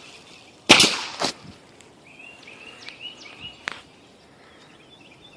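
A few sharp knocks, the loudest a little under a second in, a second just after it and a third past the middle, while a bird repeats a short chirp five or six times in between.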